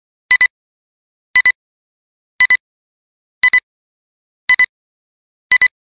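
Film-leader countdown beeps: six evenly spaced electronic beeps about once a second, each a quick double pip, with silence between them.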